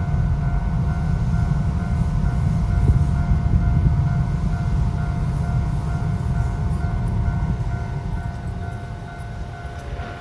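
A Toden Arakawa Line streetcar rumbling through a level crossing, its low rolling noise easing off toward the end, while the crossing's electronic warning bell rings on with a steady repeating tone.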